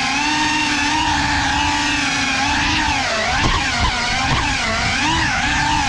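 GEPRC CineLog 35 FPV cinewhoop's motors and propellers whining in flight, heard from the GoPro it carries. The pitch holds fairly steady, then from about halfway swings quickly up and down with the throttle.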